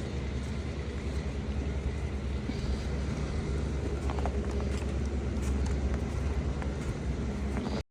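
Steady low rumble of a running motor vehicle, cutting off suddenly near the end.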